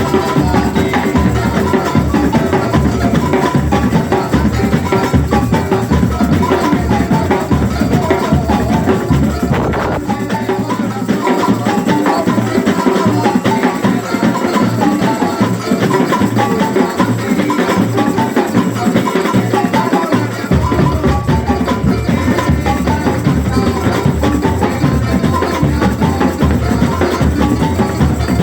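Rehearsal music driven by a drum kit playing steadily. About a third of the way through, the deep bass and kick drop out for roughly ten seconds, then come back in.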